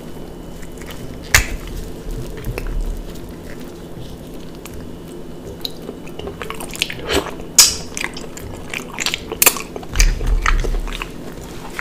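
Close-miked eating sounds of shellfish: biting and sucking the meat from a shell, then chewing with wet smacks. Sharp clicks of shell come now and then, one loud near the start and many more in the second half.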